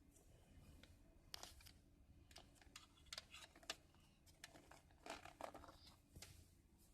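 Faint scattered clicks and brief rustling of wiring, the AUX cable and plastic trim being handled behind a car radio.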